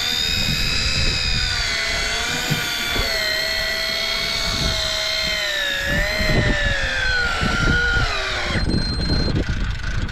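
Daiwa Tanacom 1000 electric fishing reel winding in line: a steady motor whine that slowly falls in pitch, drops further and cuts off about eight and a half seconds in.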